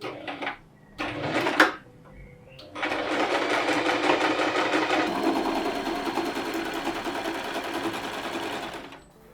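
A few short knocks, then a small electric motor appliance runs with a fast, even rattle for about six seconds and stops.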